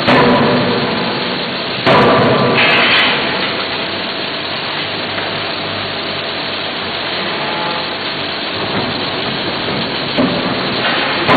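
Closed-die forging hammer striking a hot connecting-rod blank: two heavy blows in the first two seconds and another a little before the end, each with a long rumbling decay, and steady machine noise between them.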